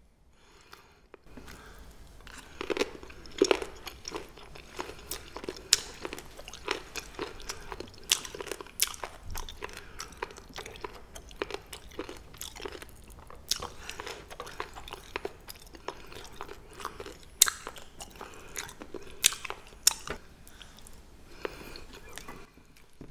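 Chewing pa-ganghoe, rolls of blanched Welsh onion, starting about a second in: a run of crisp crunches and sharp clicks at an uneven pace, with a few louder bites.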